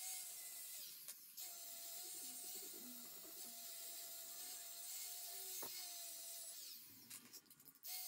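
Milwaukee cordless angle grinder running steadily with a high whine as its disc grinds the metal bracket of a caster wheel. It stops briefly about a second in, and again near the end, where it spins down before starting up again.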